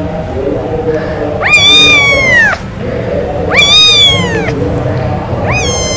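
Kittens meowing for milk: two long, high-pitched meows that each rise and then fall, about a second and a half in and three and a half seconds in, and a third beginning near the end.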